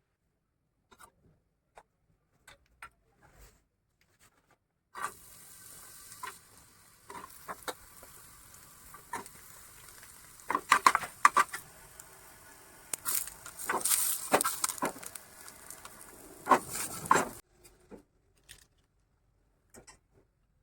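Food frying in a hot pan: a steady sizzle with a spatula stirring and scraping, and loud clanks of metal on the pan. The sizzle starts about five seconds in and cuts off suddenly near the end, with only light taps and clicks before and after.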